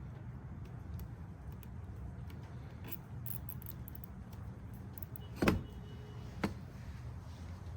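Hands working on generator wiring: light clicks and handling noises over a steady low hum, with a sharp knock about five and a half seconds in and a smaller one a second later.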